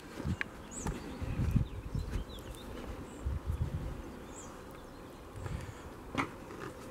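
An insect buzzing close by, coming and going, with a single sharp click about six seconds in.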